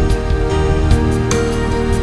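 Background music: a gentle instrumental piece with held notes and a few light struck accents.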